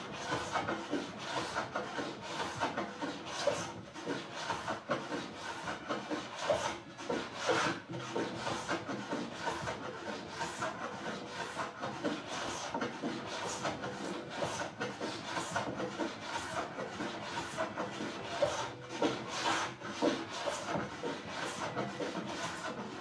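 A hand tool worked back and forth over wood, with a rasping rub of about two strokes a second, stopping abruptly at the end.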